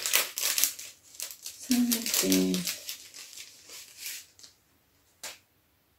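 Crinkling and rustling of a clear plastic sleeve as a plastic stencil is slid out of it, in many short rustles over the first four seconds. A brief hum of a voice comes about two seconds in, and a single click about five seconds in.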